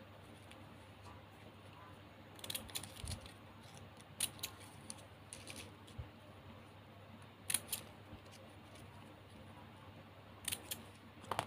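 Plastic gift ribbon crinkling and crackling in short, irregular bursts as fingers fold and tuck its ends into a star shape, starting about two seconds in.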